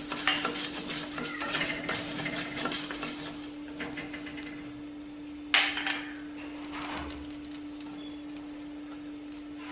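Whole spices (coriander seeds, peppercorns, cardamom) rattling and scraping as they are stirred in a pan during dry-roasting, busy for about three and a half seconds, then quieter, with a single clink about halfway through. A steady low hum runs underneath.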